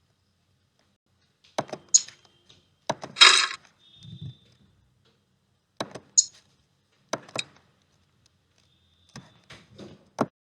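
LEGO Technic plastic pieces being handled: a string of sharp clicks and short rattles, the loudest a rattling scrape about three seconds in.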